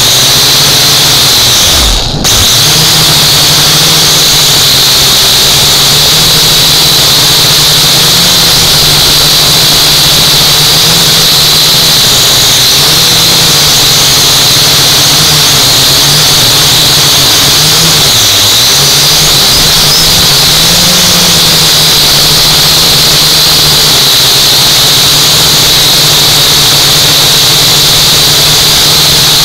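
UDI U818A quadcopter's motors and propellers whirring loudly as heard from its onboard camera, a steady low hum under a high whine, the pitch wavering a little. The sound dips briefly about two seconds in.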